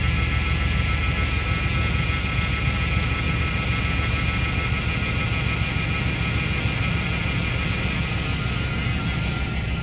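2005 GMC Savana 3500's 4.8L V8 engine idling steadily, heard with the hood open.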